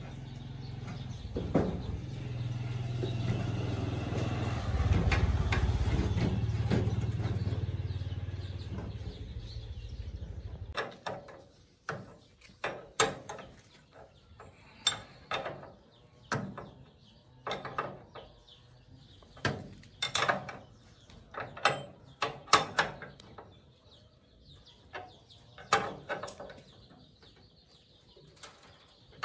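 A motor runs steadily for about ten seconds, swelling a little partway through, then stops suddenly. After that a ratchet clicks in short bursts every second or two, as a ratchet wrench does when it is worked in strokes during engine repair.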